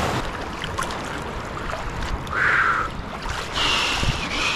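Shallow seawater sloshing and splashing around a person's legs as he wades out through the surf. There are louder rushes of water about halfway through and again near the end.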